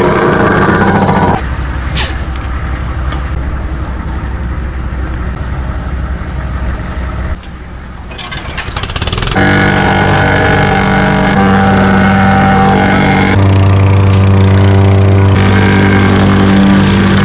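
A vehicle engine running with a steady low rumble. From about nine seconds in, background music with sustained chords that change every couple of seconds takes over.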